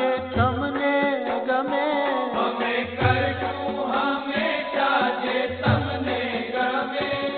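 BAPS Swaminarayan devotional kirtan music: a melodic devotional song with recurring low bass notes underneath.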